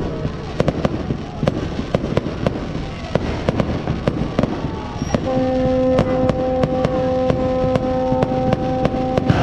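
New Year fireworks going off in a rapid, irregular run of sharp bangs and crackles. About five seconds in, a steady horn tone starts and holds under the bangs.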